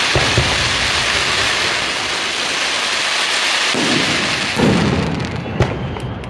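Fireworks display: a dense, steady hiss and crackle from a barrage of sparkling effects, with low booms of shells bursting near the start and again around four seconds in. The hiss thins out about five seconds in, and a single sharp bang follows near the end.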